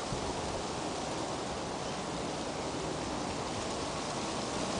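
Steady outdoor background noise: an even hiss with no distinct events.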